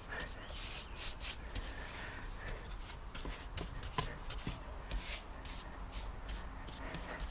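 Paint brush scrubbing paint onto wooden deck boards in short, irregular strokes, several a second, as bare spots are touched up.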